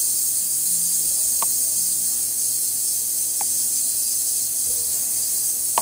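A 1200-watt ultrasonic rod transducer runs in a tank of plain water, giving a steady high hiss from the cavitation bubbles working oil off the submerged metal fittings. A few faint short ticks come through it.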